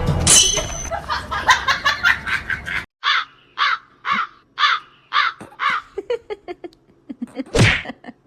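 A bird calling repeatedly, about two calls a second, with one louder call near the end.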